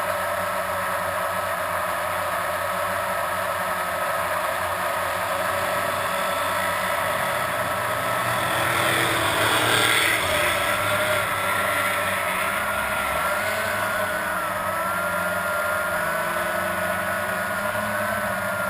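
Blade 350 QX quadcopter's electric motors and propellers whining steadily, heard from the onboard camera; the pitch wavers from about the middle on as the throttle shifts. A brief louder rushing swell comes about halfway through.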